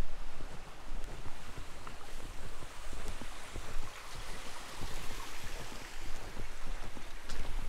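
Wind buffeting the microphone in gusts, a low rumble under a steady rushing hiss that brightens for a few seconds midway.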